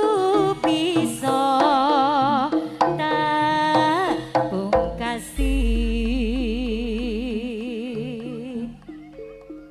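Live East Javanese jaranan music: a wavering melody line with strong vibrato over steady kendang drum beats, with a long deep bass note about five seconds in that slowly fades.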